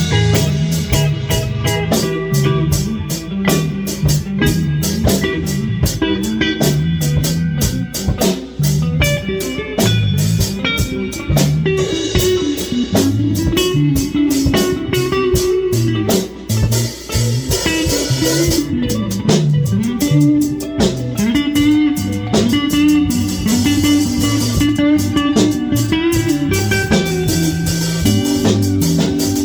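A live band jamming: electric guitar, bass guitar and drum kit, with a walking bass line and steady drum hits under a guitar line.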